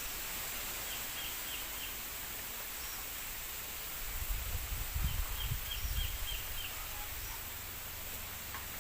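Wind rustling through bamboo leaves as a steady hiss, with a gust buffeting the microphone as a low rumble in the middle. A small bird gives two quick runs of short chirps, about five notes and then about seven.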